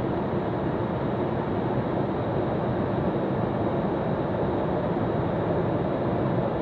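Steady cockpit noise of an Eclipse 500 light jet in flight: an even rush of airflow over the fuselage mixed with the sound of its twin Pratt & Whitney PW610F turbofans.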